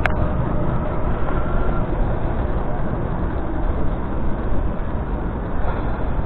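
Steady wind rush and road rumble on the microphone of a camera riding along a paved bike lane, with one sharp click right at the start.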